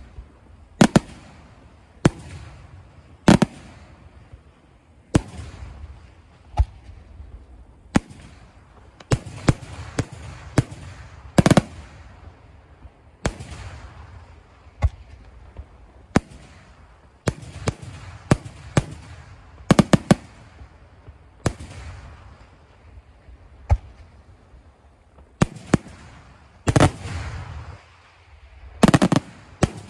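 Aerial firework shells bursting one after another in an irregular sequence of sharp bangs, mostly a second or two apart, with several quick clusters of two or three.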